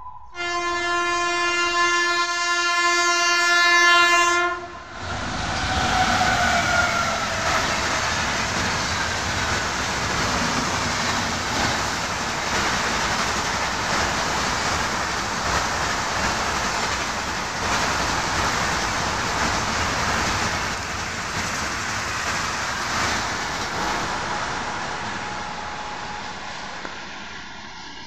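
WAP7 electric locomotive's horn: a long steady blast for about four seconds that cuts off suddenly, then a second, shorter blast that falls in pitch as the locomotive passes. The rumble and clatter of the passenger coaches running by follows and fades near the end.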